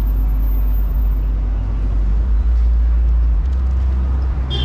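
Downtown street traffic: a steady, loud low rumble of passing vehicles. A high squeal starts just before the end.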